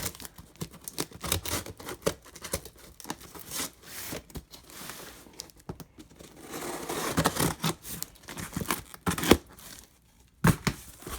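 A cardboard shipping box being torn open by hand: ripping, scraping and crinkling of cardboard and packing material in irregular bursts with sharp clicks, busiest in the second half, with a brief pause near the end.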